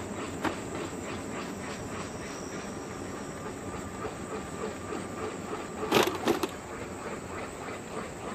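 Wheels rolling steadily along a paved trail, with a hiss of rolling noise and faint regular ticking, and a brief rattling jolt of a few knocks about six seconds in.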